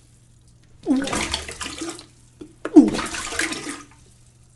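A person retching and vomiting twice, each heave a gagging voice followed by liquid splashing into water.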